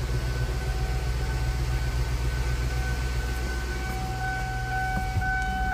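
Exhaust of a 2002 Ford Thunderbird's 3.9-litre V8 idling steadily at the tailpipe, a low even rumble. A steady high whine rides over it and grows louder about four seconds in.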